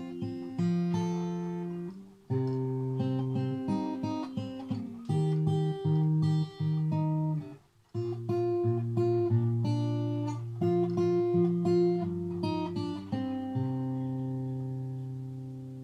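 Yamaha LS-TA acoustic guitar fingerpicked without its TransAcoustic effects, giving its plain dry sound: single-note melody over low bass notes. There are two short breaks, and near the end a last chord rings out and fades.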